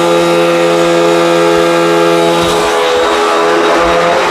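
Hoover WindTunnel High Performance upright vacuum running steadily, its brushroll agitating a dirty outdoor rug; the motor holds a steady pitch, and its lowest hum drops away about two and a half seconds in.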